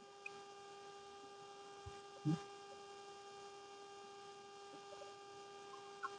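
Faint steady electrical hum made of a few constant tones, with one soft knock about two seconds in.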